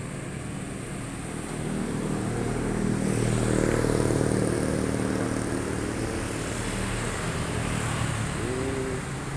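A motor vehicle passing on the road, its engine growing louder to a peak about four seconds in and then slowly fading.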